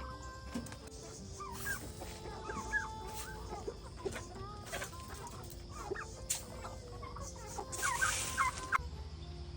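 A flock of chickens clucking, with many short calls. A brief rush of noise comes about eight seconds in.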